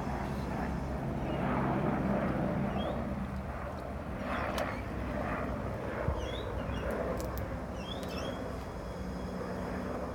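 A steady low engine-like rumble, with irregular soft splashing as a Keeshond puppy paws and laps at the water of a small garden pond, and a few faint bird chirps.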